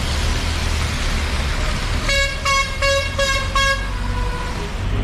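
A vehicle horn honks five short blasts in quick succession about two seconds in. Under it is the steady low rumble of engine and road noise from the moving vehicle.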